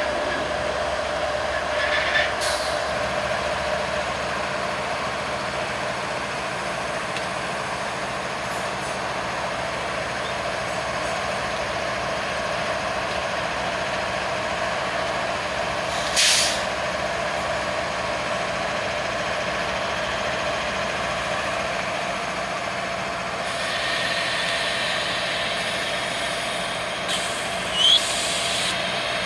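Two BNSF diesel locomotives moving slowly, their engines giving a steady drone with a whine over it. Short sharp hisses of air cut in three times: about two seconds in, in the middle, and near the end.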